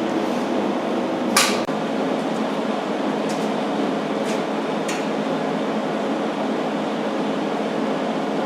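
Millermatic 90 wire-feed welder humming steadily between welds, with a sharp metallic clink about a second and a half in and a few faint ticks after it.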